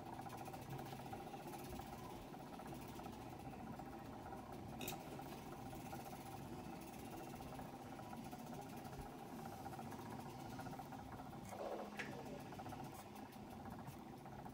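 Small electric tumbler-turner motor running with a steady hum as it spins the cup. A light click comes about five seconds in and another about twelve seconds in.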